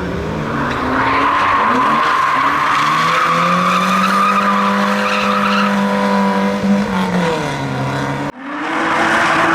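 Drift car engine held at high revs while its tyres squeal and scrub in a slide, the revs rising early and dropping away near the end. It breaks off abruptly about eight seconds in, followed by another engine running at steady high revs.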